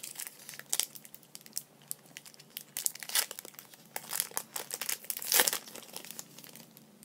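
Foil Pokémon booster pack wrapper crinkling and being torn open, a run of irregular crackles, loudest about three seconds in and again past five seconds.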